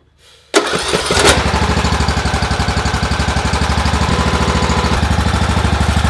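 John Deere S100 riding mower's single-cylinder Briggs & Stratton engine, cranked and catching about half a second in, then running steadily with a fast, even pulse. It starts on a newly fitted replacement battery.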